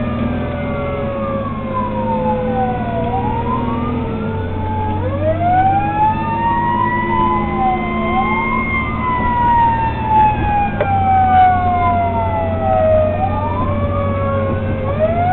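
Fire engine siren wailing in slow sweeps, each rising over a few seconds and sliding back down over several more, over the steady low drone of the truck's engine.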